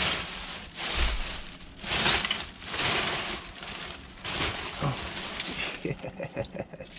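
Plastic bin bags rustling and crinkling in repeated bursts, about one a second, as gloved hands rummage through them, with a dull thump about a second in.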